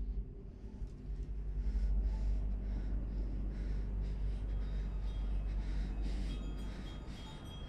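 A woman's quick, frightened breathing, a puff about every half second, over a steady low rumbling drone. Faint high ringing tones come in near the end.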